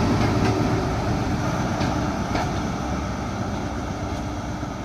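A train pulling away, its engine running steadily and slowly fading, with a few clicks of wheels over the rail joints.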